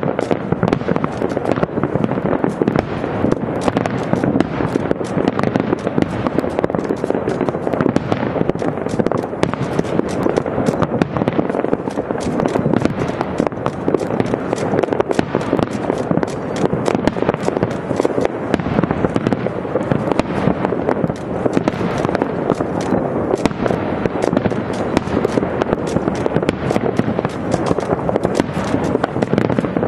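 Fireworks display going off without a break: many bangs and crackles in close succession, shells bursting one after another.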